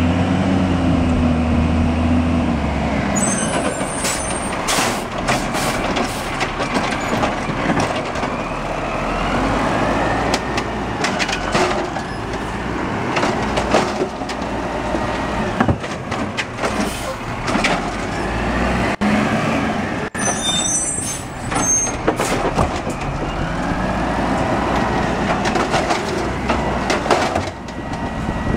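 2001 Peterbilt garbage truck with an Amrep automated side-loader: its diesel engine runs and revs up and down as the hydraulic arm grabs, lifts and empties a cart. Clanks and bangs of the cart and arm, and two short air-brake hisses, about three seconds in and again around twenty seconds in.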